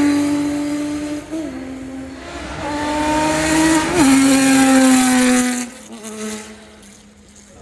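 Competition rally and off-road cars driving past on a hillclimb course, their engines running hard under load. The engine note steps down at gear changes about one and a half and four seconds in, then fades away near the end.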